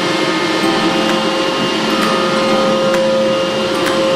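CNC oscillating knife cutting machine running: a steady whine over a machine hum, with faint ticks about once a second.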